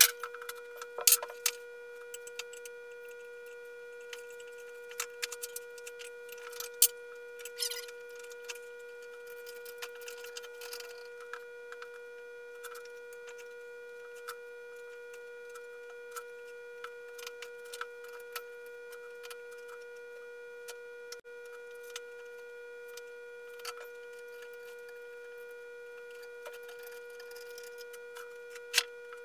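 Scattered clicks, knocks and short scrapes of clamps, ratchet straps and chair parts being handled during a glue-up, over a steady high-pitched hum.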